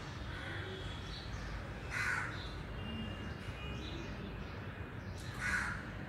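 A crow cawing twice, two short harsh calls about three and a half seconds apart, over a steady low background rumble.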